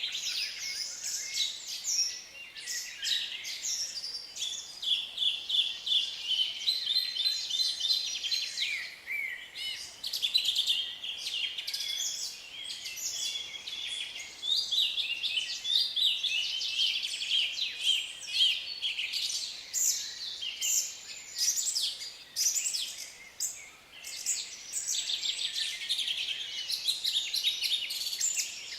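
Forest ambience of many songbirds singing at once: a dense, overlapping chorus of high chirps, trills and rapid repeated notes.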